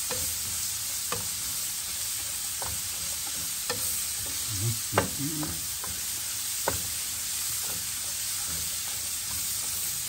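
Sliced onion and garlic sizzling steadily in a nonstick frying pan while a spatula stirs and scrapes through them, with scattered light clicks from the spatula against the pan and a louder knock about five seconds in.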